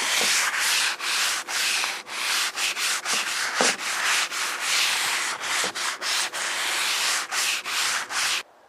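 Sanding wooden kitchen cabinet doors: a loud gritty rubbing hiss in quick strokes, broken by short gaps about twice a second, which stops suddenly just before the end.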